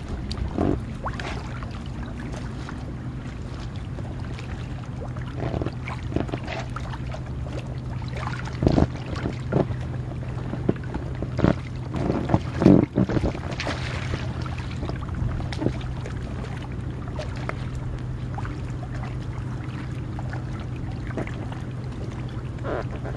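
Water splashing and sloshing in irregular bursts as a person wades and clambers onto a large inflatable pool float, the strongest splashes a little past the middle, over a steady low hum.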